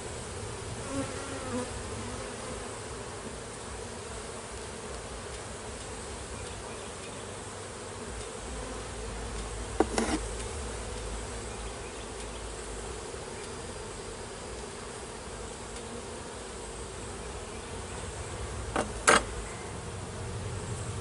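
A colony of honeybees buzzing steadily around an open hive. Two sharp knocks cut through the hum, one about halfway through and one near the end.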